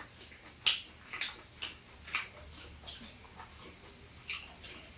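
Eating sounds: irregular sharp clicks and smacks of chewing, with a metal spoon working in a small ceramic bowl of rice.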